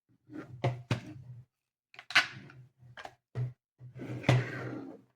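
Moving plastic parts of a 3D-printed Agripinaa pattern autogun model being worked by hand: a few sharp clicks with scraping, sliding handling noise between them.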